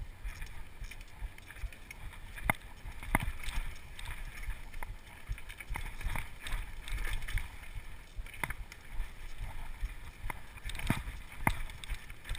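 Downhill mountain bike descending a rough trail: a steady low rumble with frequent sharp clicks and knocks as the bike rattles over bumps and rocks.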